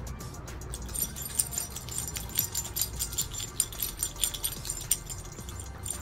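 A dog's metal chain collar jingling in irregular clinks as the dog is brushed and shifts about.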